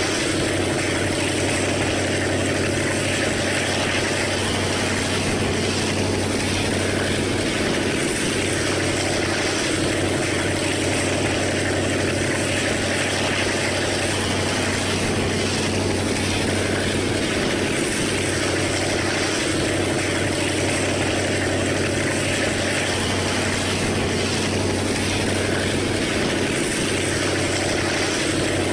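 TCDD DE 24000 diesel-electric locomotive running steadily under power, a loud, even engine drone heard along the train, over the steady running noise of the moving coaches.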